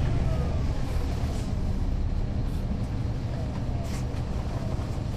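On-board sound of a 2009 NABI 40-SFW transit bus under way: its Caterpillar C13 inline-six diesel and driveline drone low and ease off slightly, with a faint whine falling in pitch and a couple of brief rattles.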